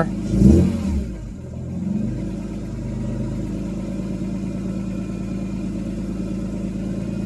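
BMW S54 inline-six given a quick throttle blip about half a second in, revving up and dropping back, then settling into a steady, quiet idle that sits a little high. There is no valve tick, the sign that the out-of-spec valve clearance has been set back into spec.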